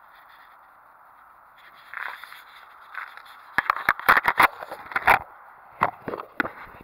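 Handling noise: a run of sharp clicks, knocks and scrapes starting about halfway through, over a faint steady hiss and a faint high tone.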